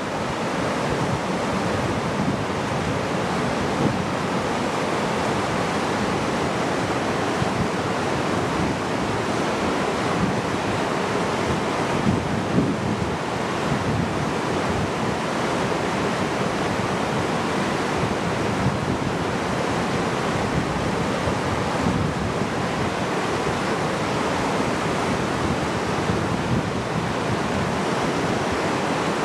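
Steady rushing of a rocky mountain creek, a continuous even roar of whitewater.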